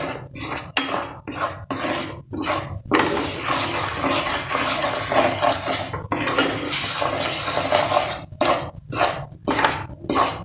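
Spatula scraping and stirring around a nonstick frying pan of melting jaggery. It comes in quick separate strokes at first and again near the end, and is continuous in between. The jaggery is still melting, with lumps not yet dissolved.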